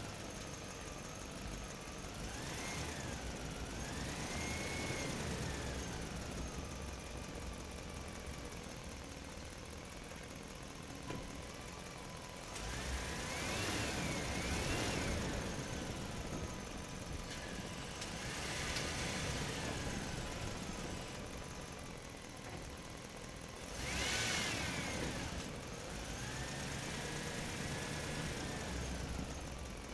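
Truck driving slowly through a concrete parking structure, its engine a steady low rumble. Several high squeals, each a second or two long, rise and fall in pitch over it.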